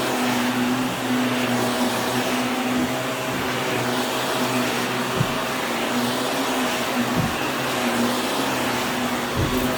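Vacuum cleaner running steadily, its motor hum wavering slightly in pitch, with a few short low knocks about halfway through and near the end.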